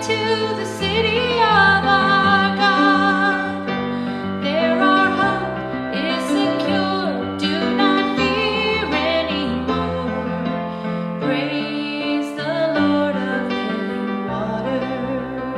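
Music: a woman singing with vibrato over sustained keyboard chords.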